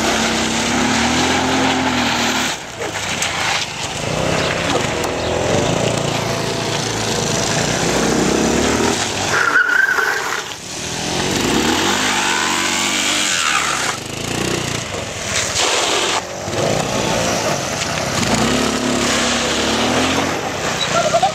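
Scooter engines, a Yamaha Majesty 150 and a Motobi Wilga III, revving hard, rising and falling in pitch again and again, while the tyres squeal and scrub on the asphalt as the scooters drift and spin.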